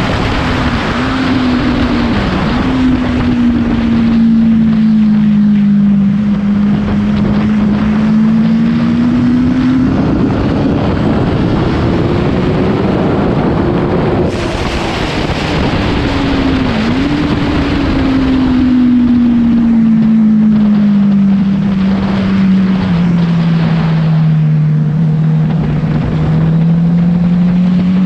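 Honda CBR1000 sport bike's inline-four engine running under way, its revs easing down, climbing to a peak about halfway, then falling slowly again, with two brief dips in pitch. Wind noise rushes over the microphone throughout.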